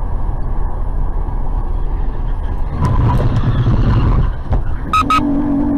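Steady low road and engine rumble heard from inside a car on the freeway, swelling about three seconds in. Near the end come two quick sharp beeps and then a short held tone, which sounds like a car horn sounded at a pickup cutting in ahead.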